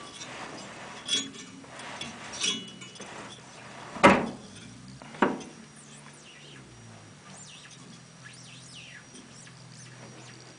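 Sharp knocks and clinks of tools on metal while a tumble dryer's motor is being removed: four strikes, the loudest about four seconds in. Faint high, falling chirps follow.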